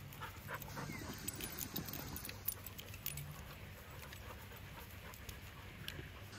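A dog panting faintly close by, with a few soft ticks and rustles of dogs moving on grass.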